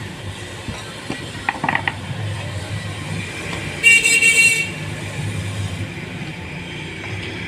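A vehicle horn toots once, briefly, about four seconds in, over a steady low rumble of road traffic.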